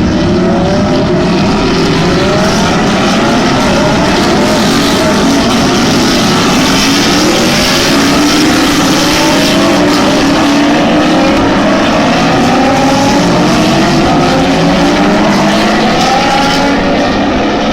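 Several GT3 race car engines revving over and over at once, loud and continuous, their pitches repeatedly climbing and overlapping.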